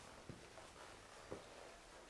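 Near silence: room tone, with two faint short knocks, the second a little louder.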